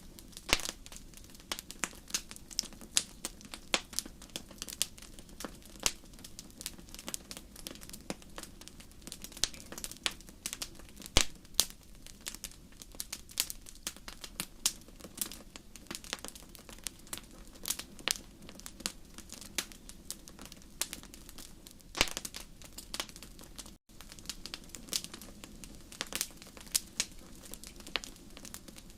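Wood fire burning in a fireplace, crackling with irregular sharp pops of varying loudness over a low steady rush of flame. The sound cuts out for an instant about 24 seconds in.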